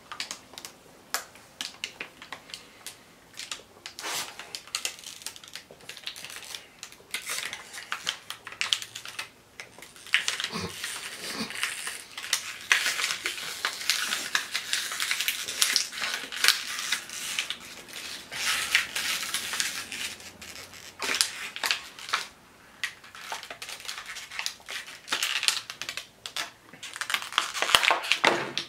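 Thin plastic water bottle crackling and popping irregularly as it is drunk from and caves in, with a loud burst of crumpling near the end as it is squeezed by hand.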